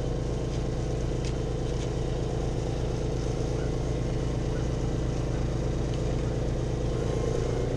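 Generator engine running steadily, a constant low hum with a fixed pitch.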